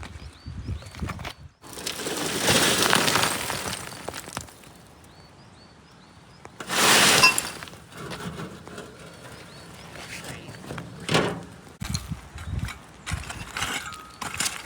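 Two crashing, breaking sounds: a longer one about two seconds in and a sharper, louder one about seven seconds in, with a few smaller knocks after.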